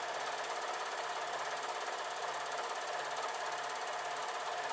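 Overlocker (serger) running steadily at speed, stitching through lightweight linen as the fabric is fed under the presser foot.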